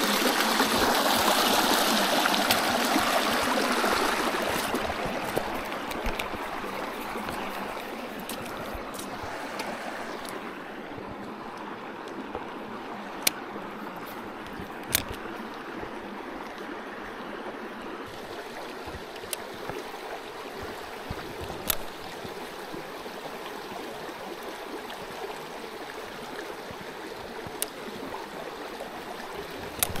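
Shallow creek water rushing over rocks, loudest at first beside a small cascade, then settling to a steady, quieter flow. A few sharp single clicks break through it in the middle.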